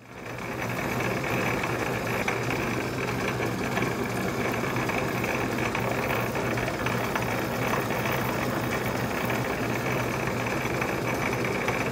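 Small metal lathe running steadily while its tool cuts cooling fins into a model diesel engine's cylinder: an even, continuous machine hum with cutting noise on top.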